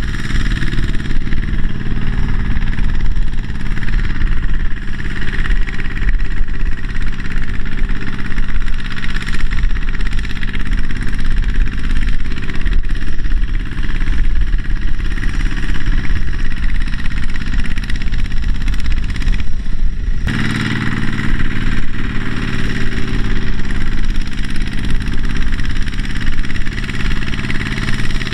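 A two-wheel walking tractor's single-cylinder diesel engine runs loud and steady while it pulls a trailer loaded with rice sacks through mud. Its sound changes abruptly about two-thirds of the way through, then runs on.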